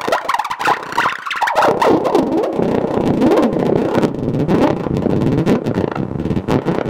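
EMS VCS3 MkII analogue synthesizer sounding a gritty electronic tone whose pitch sweeps rapidly up and down in repeated glides, starting a second or so in after a few choppy pulses.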